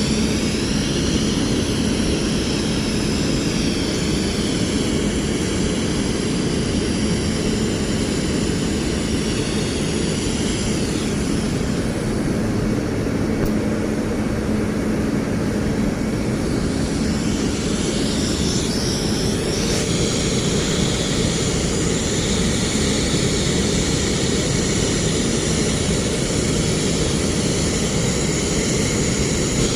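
Steady, loud running machinery with a constant low hum that stops about two-thirds of the way through.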